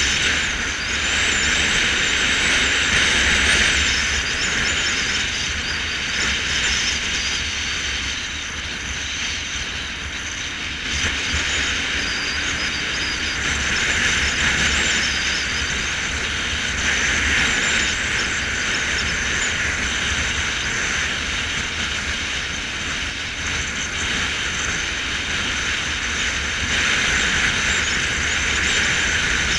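Motorcycle riding at a steady cruising speed: the engine running with a low rumble under steady wind and road noise, with slight rises and falls in loudness.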